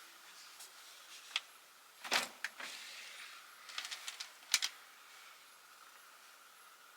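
Objects being handled and set down while sorting through a closet: a handful of sharp clicks and knocks, the loudest about two seconds in, a quick run of clicks around four seconds and a last knock shortly after, over a faint steady hum.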